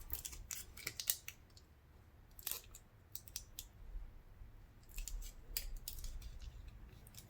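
Irregular sharp clicks and small taps of plastic phone parts and small tools being handled and pressed into place during a smartphone reassembly.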